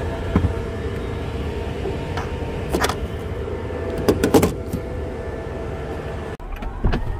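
Steady mechanical hum with a constant mid-pitched tone from a Tesla Supercharger stall charging a car, with a few light knocks and clicks of handling. It cuts off abruptly about six seconds in.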